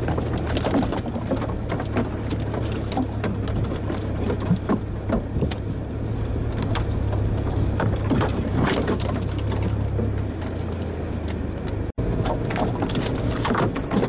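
Land Rover engine running steadily at low speed, with branches and ferns scraping and slapping against the vehicle and knocks and rattles from the body over the rough track.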